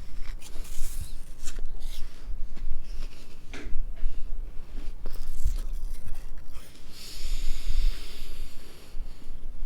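A person eating an apple close to the microphone: irregular crunching and chewing, with a breathy hiss for about two seconds near the end.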